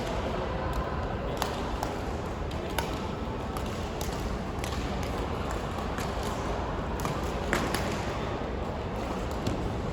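Badminton rally in a sports hall: sharp taps of rackets striking the shuttlecock at irregular intervals a second or two apart, over steady hall noise.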